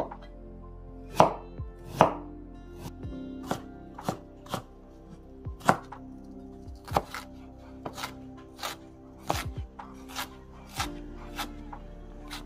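Kitchen knife cutting fresh ginger root into thin strips on a plastic cutting board: sharp knocks of the blade on the board, unevenly spaced at about one to two a second, the loudest two in the first couple of seconds.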